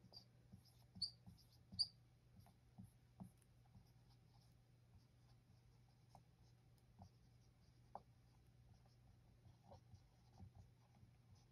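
Dry-erase marker squeaking and tapping faintly on a whiteboard while drawing and writing, with a few sharper squeaks in the first two seconds.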